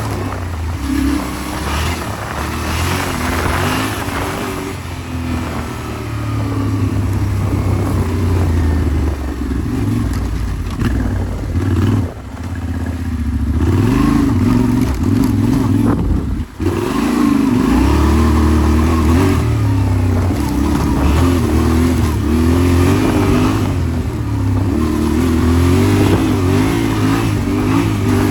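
Yamaha Ténéré 700's parallel-twin engine running under load as the bike is ridden off-road, its note rising and falling with the throttle. The engine cuts back briefly twice near the middle, as the throttle is closed.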